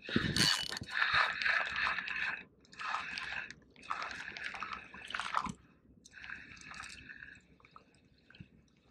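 Spinning reel being cranked in short spurts with brief pauses, a stop-and-go retrieve of a lure, with a sharp handling knock at the very start. The reel's gears whir during each spurt, and the sound trails off into faint ticks near the end.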